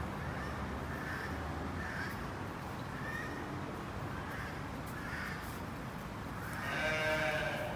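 A sheep bleats once near the end, a single loud wavering call under a second long, over a steady low background rumble.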